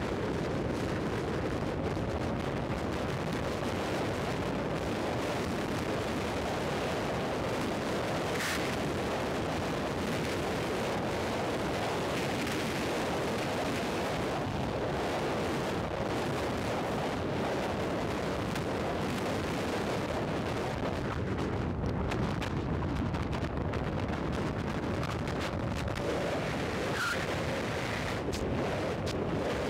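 Steady, heavy wind rush on the microphone of a motorcycle-mounted camera at highway speed, with the Royal Enfield Thunderbird 500's air-cooled single-cylinder engine running underneath.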